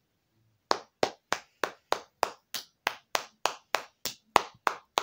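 A girl clapping her hands in a steady, even rhythm, about three claps a second, starting just under a second in.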